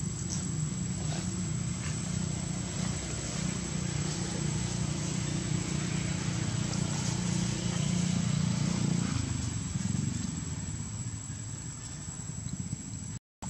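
A steady low engine drone, swelling a little about eight seconds in and easing off after ten, under a constant thin high-pitched whine. The sound cuts out for a moment just before the end.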